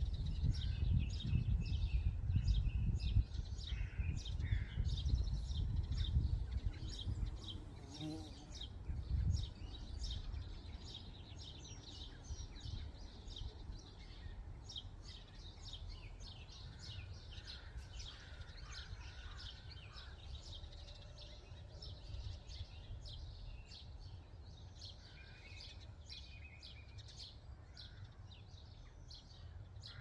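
Spring chorus of several songbirds singing: many quick high chirps and trills throughout, with a low rumble that is strongest for the first several seconds and then eases off.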